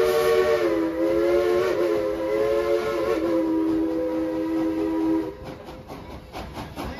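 Steam locomotive's three-chime whistle sounding a long chord that wavers and sags slightly in pitch as it is held, then cuts off about five seconds in. The moving train's running noise is left underneath.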